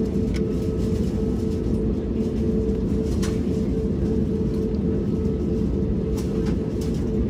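Steady low rumble and hum of an Airbus A320neo's passenger cabin, with a steady mid-pitched tone running through it and a few faint clicks.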